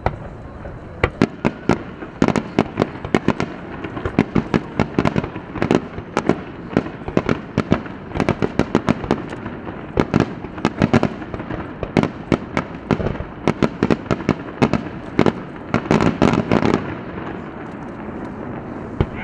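Aerial fireworks shells bursting in rapid succession: dozens of sharp bangs and crackles. A dense flurry about sixteen seconds in, then fewer pops near the end.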